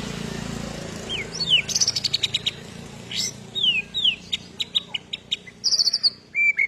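White-rumped shama (murai batu) singing an agitated, fighting-mood song: quick falling whistles, rapid high trills and sharp ticks, starting about a second in over a low steady rumble.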